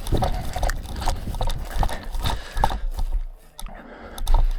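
Irregular footsteps and knocks, several a second, over a steady low rumble on the microphone, as of a player moving with gear.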